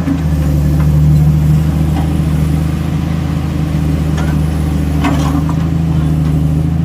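Excavator's diesel engine running steadily at a low, even pitch, swelling slightly about a second in.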